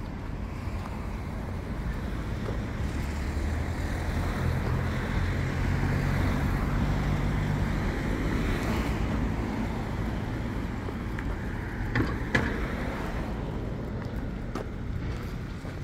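Road traffic: a vehicle's engine hum swells and fades as it passes, over a steady rumble of traffic and wind on the microphone. Two sharp clicks sound close together about three-quarters of the way through.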